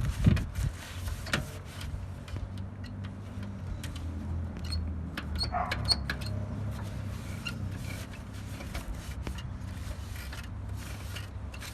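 Hand-sanding of a plastic headlight lens with 500-grit sandpaper: faint, irregular scratchy strokes over a steady low hum.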